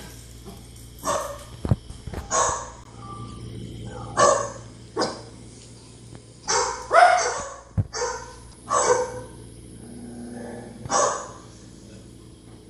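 A dog barking at dogs on a TV screen: single barks and pairs of barks, about nine or ten in all, with short pauses between them. Two brief low thumps come in among the barks.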